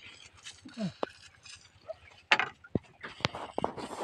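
Scattered sharp knocks and clicks from gear being handled aboard a small boat, with a cluster of several taps in the second half.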